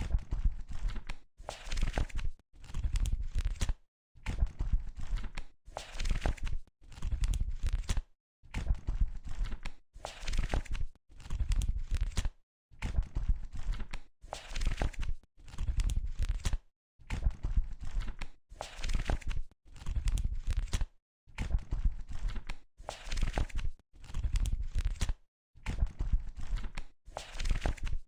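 Book pages being turned one after another: a papery rustle about every two seconds, each turn separated by a short silence.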